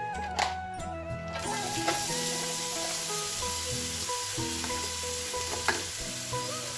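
Chopped onion hitting hot oil in a nonstick frying pan and sizzling steadily from about a second and a half in, with a few sharp taps. Background music plays throughout.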